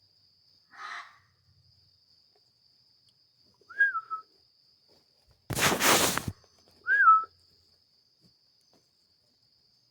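Unidentified animal calls at night: a short rough call, then two brief whistled notes that rise and then drop, about three seconds apart. Between the two notes comes a loud, harsh screech lasting under a second. A faint, steady high tone runs underneath.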